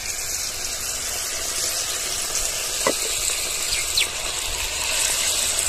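Thin spiced tomato gravy boiling in a wok, giving a steady bubbling hiss as fried brinjal pieces are tipped into it.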